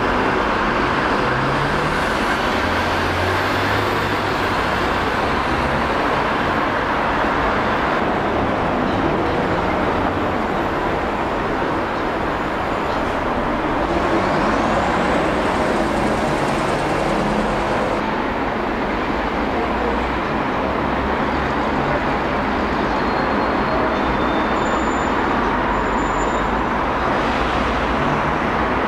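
Steady city-centre traffic noise: cars and buses running on the surrounding streets.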